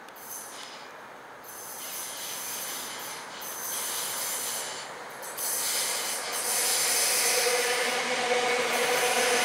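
A c2c electric multiple unit approaching on curved track and passing close by: the rumble of its wheels on the rails grows steadily louder. A steady whine joins in about seven seconds in as the front cars go past, and it is loudest near the end.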